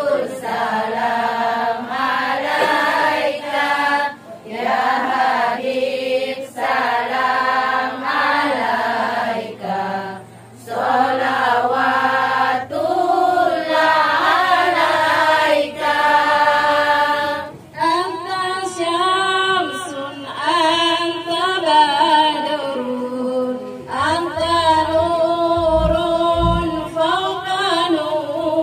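Women singing sholawat, Islamic devotional songs praising the Prophet, unaccompanied, in long sung phrases with short breaks between them. A few low thuds come about 25 seconds in.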